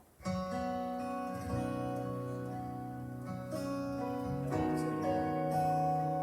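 Instrumental introduction of a gospel song, starting about a quarter second in: sustained chords that change every few seconds, with no singing yet.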